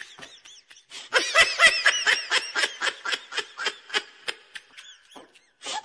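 Laughter: a long run of quick, high-pitched laugh bursts, about five a second, starting about a second in and fading out near the end.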